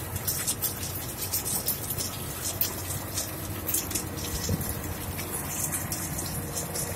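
An exploratory drilling rig running, with its water rushing and gushing steadily and many short sharp ticks throughout.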